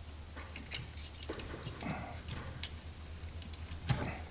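Scattered sharp clicks and taps of plastic trim and connector parts being handled and pulled while an ignition switch is removed from a car's steering column, with the loudest click near the end, over a steady low hum.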